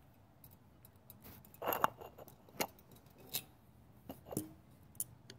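The wrapping of a new oil filter being torn and crinkled open by hand: a series of sharp crackles and clicks, loudest in a cluster about two seconds in.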